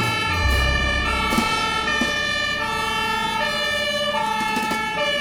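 Electronic siren from a toy fire rescue vehicle, sounding steadily with pitched tones that step up and down.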